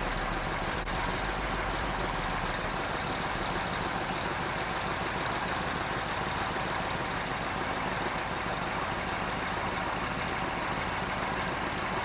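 Chevrolet Silverado pickup engine idling steadily, with an exhaust manifold leak blowing hot exhaust gas.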